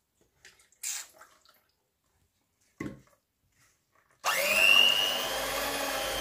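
A couple of faint knocks, then about four seconds in an electric hand mixer switches on suddenly and runs steadily with a high motor whine, its beaters mixing pancake batter.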